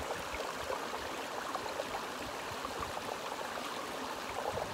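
Sea water washing at the shore, a steady rushing hiss with faint small splashes.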